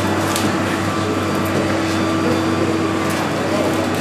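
Evergreen branches of a large Christmas tree rustling and scraping through a doorway as it is hauled on a rope, with a few brief crackles, over a steady hum.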